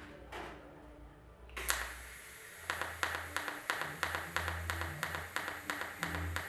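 Pulsed TIG welding arc on stainless steel pipe. It strikes sharply about a second and a half in, then hisses with a regular tick about three times a second as the current pulses.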